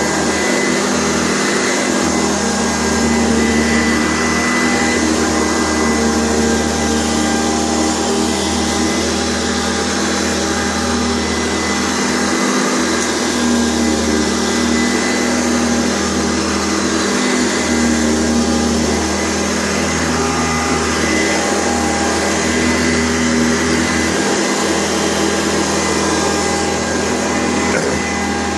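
Sanitaire SC684 upright vacuum cleaner running steadily while vacuuming. Its motor arcs a little and doesn't sound good, by the owner's account.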